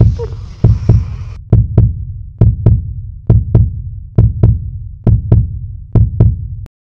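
Heartbeat sound effect: deep double thumps (lub-dub) at a slow, even pace of about seventy beats a minute, which stop suddenly near the end.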